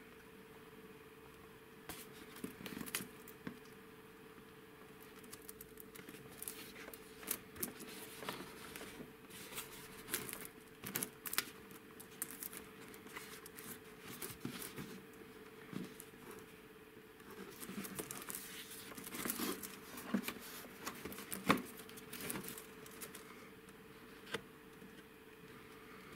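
A boxed toy in a cardboard box with a plastic window, handled and turned over in the hands: scattered taps, scrapes and rustles of cardboard and plastic, with one sharper knock toward the end, over a faint steady hum.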